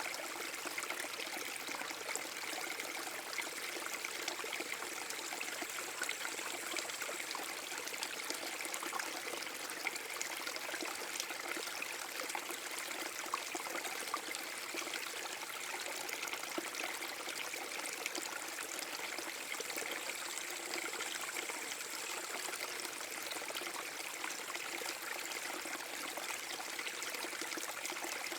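Small waterfall on a forest brook: water pouring and splashing steadily, with fine trickling and dripping over the continuous rush.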